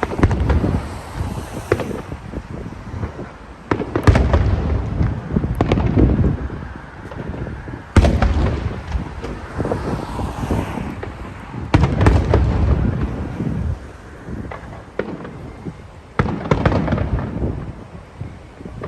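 Aerial fireworks display: big shells bursting with sharp booms about every four seconds, each followed by a long rumbling echo, with crackling and smaller pops in between.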